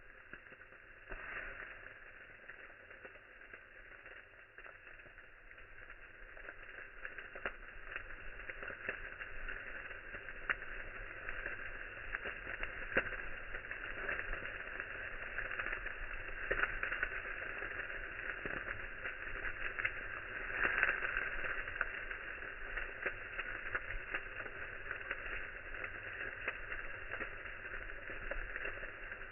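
Cooking fire crackling and hissing, with frequent small pops, growing somewhat louder over the first several seconds.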